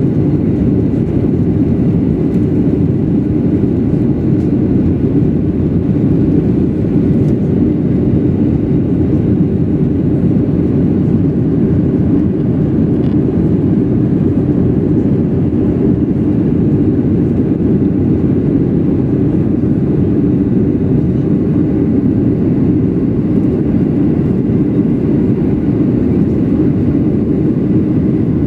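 Steady, even cabin noise inside a Boeing 737-800 in flight: the low rush of its CFM56-7B engines and of air along the fuselage, unchanging throughout.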